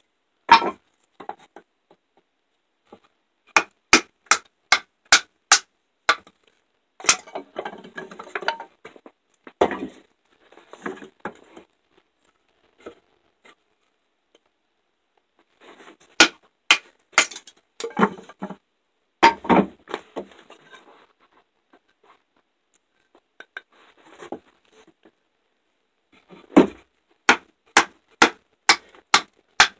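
Wooden baton striking the spine of an MTech fixed-blade knife, driving it down through a board: runs of sharp knocks about two a second, with quieter scraping and rustling of wood between the runs.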